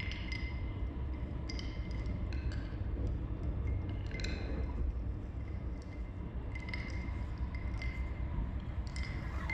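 Ice cubes clinking against a glass, in irregular clinks about every second, each ringing briefly at the same pitch, over a steady low rumble.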